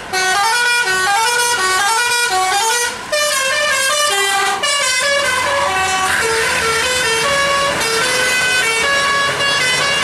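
Tour bus's multi-tone 'telolet' horn playing a fast melody, several tones sounding together and stepping from note to note. It starts abruptly, with a short break about three seconds in.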